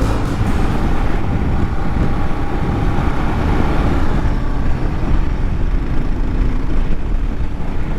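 Dual-sport motorcycle engine running steadily while riding, with wind buffeting the microphone.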